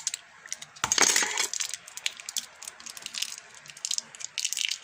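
Small magnetic metal balls clicking and rattling together as they are handled, with a dense cluster of clicks about a second in.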